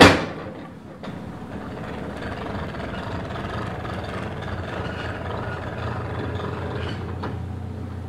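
Narrowboat engine running steadily at low revs, a constant low hum under a wash of noise. A brief loud rush of noise fades out in the first half-second.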